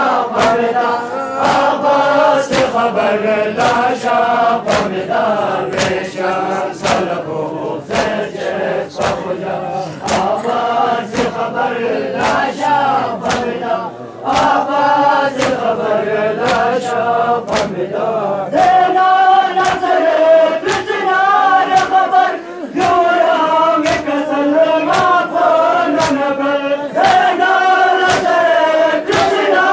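A crowd of men chanting a lament in unison, kept in time by a steady beat of chest-beating strikes about one and a half a second. The singing dips briefly about halfway through, then comes back higher and louder.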